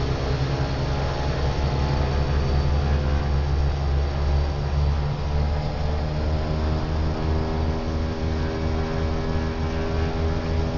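Twin Pratt & Whitney PT6 turboprop engines running steadily during a ground run, heard from inside the cockpit as a loud, even drone with several steady tones. Some of those tones shift slightly about two-thirds of the way through.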